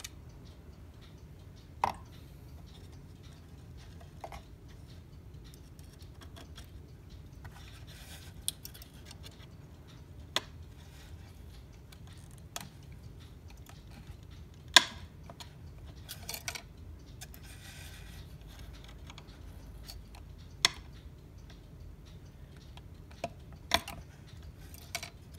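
A small metal pick and fingers working at the tight weight chains of a cuckoo clock to prise the links open: scattered sharp metallic clicks, about a dozen at uneven intervals, the loudest about halfway through, with short bouts of scraping between them.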